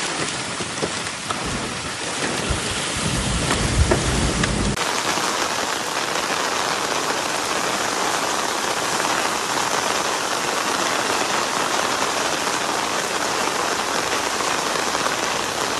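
Heavy rain pouring down in a dense, steady hiss. For the first few seconds a low rumble runs under it, and about five seconds in the sound changes abruptly to an even downpour.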